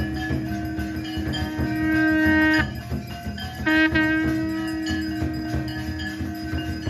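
Background music: a long held note that breaks off about two and a half seconds in and comes back about a second later, over a steady rhythmic accompaniment.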